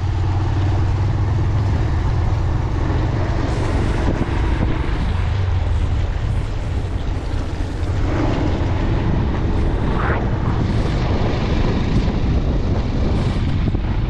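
Motorcycle engine running steadily while riding, with the rush of wind and road noise.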